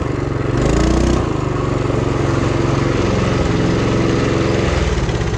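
Duromax 212cc single-cylinder engine of a mini bike, running on propane. It revs up briefly about a second in, then runs steadily at low speed.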